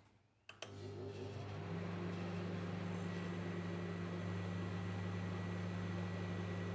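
Microwave oven switched on with a click about half a second in, then running with a steady low hum while it warms a small amount of milk; a faint high whine joins about three seconds in.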